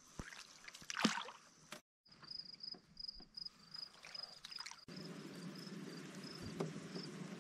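A canoe on calm water, with soft water sounds and small knocks in the boat and a louder knock about a second in. From about two seconds in, a high chirping repeats several times a second over the water sounds.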